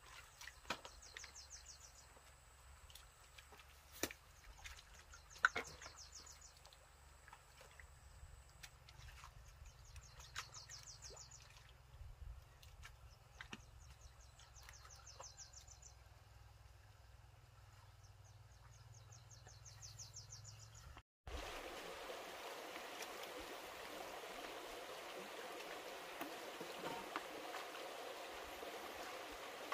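Wading through shallow mud, with a few sharp splashes and knocks, under a high, rapidly pulsing call that repeats every couple of seconds. After a sudden cut about two thirds through, a shallow stream runs steadily over stones.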